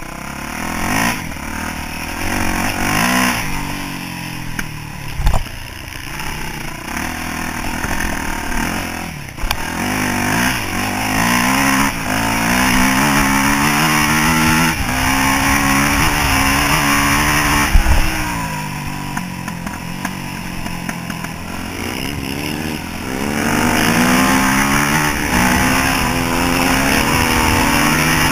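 A Yamaha YZ426F dirt bike's single-cylinder four-stroke engine under way off-road, revving up and dropping back again and again as the rider opens and closes the throttle and changes gear. A sharp knock comes about five seconds in, and another just past the middle.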